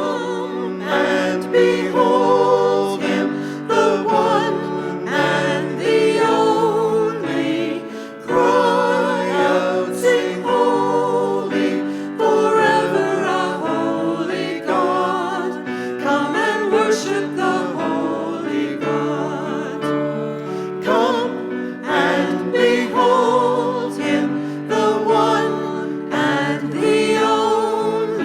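A choir singing a hymn with keyboard accompaniment.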